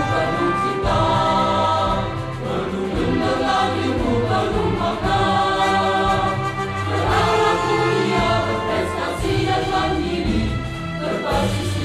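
A choir singing an Indonesian school march (mars) over an instrumental backing, on the lines "Guru membimbing dengan penuh cinta, menuntun dengan ilmu penuh makna, berakhlak mulia berprestasi dan mandiri".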